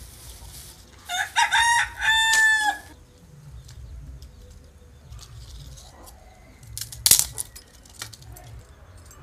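A rooster crowing once: a loud broken crow of several notes ending in a long held note. About seven seconds in, a single sharp knock.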